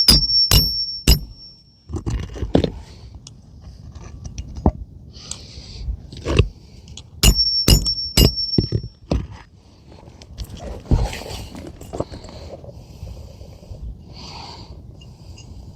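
Hammer driving roofing nails through an asphalt shingle: two quick runs of about three blows, one at the start and one about seven seconds in, each blow with a short metallic ring. Between the runs there is scraping and rustling on the shingles.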